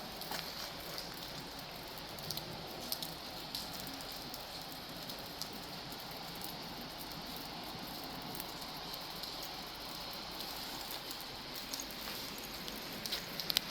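Steady rain falling, an even hiss with scattered sharp drop ticks that come more often near the end.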